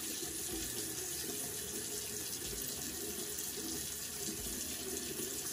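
Bathroom sink tap left running, a steady rush of water into the basin.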